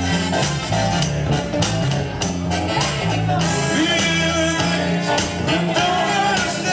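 A live band playing dance music: electric guitar over bass and drums keeping a steady beat.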